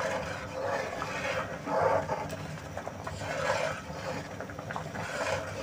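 A spatula stirring pulao rice in a pan of simmering water and milk, scraping across the pan bottom in slow repeated strokes to keep the rice from sticking.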